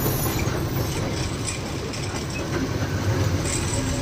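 Diesel engine of an Ashok Leyland ten-wheeler goods truck running steadily with a low hum under road and cab noise, heard from inside the truck.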